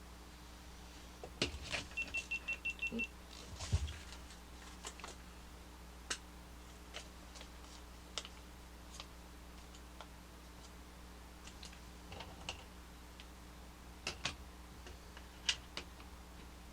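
Small plastic toy parts being handled and clicked together: scattered sharp clicks and taps, with a quick run of about eight even clicks about two seconds in.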